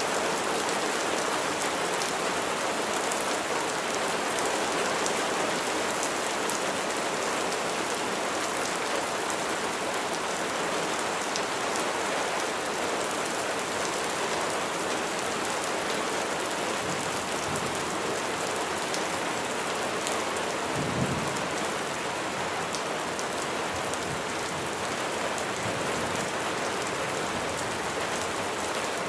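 Steady rain falling on surfaces, a dense, even hiss. A few low rumbles of distant thunder come in the second half, the sharpest about two-thirds of the way through.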